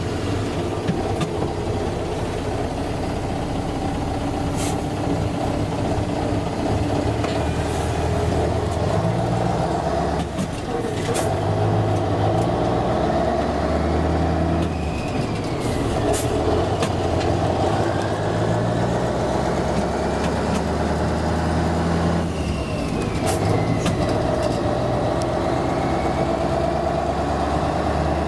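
Scania V8 diesel truck engine under way, heard from inside the cab. Its note climbs with the revs and drops back sharply three times, at gear changes.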